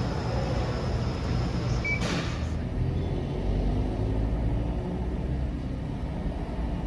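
Car engine and road noise heard from inside the cabin: a steady low rumble, with a brief hiss about two seconds in.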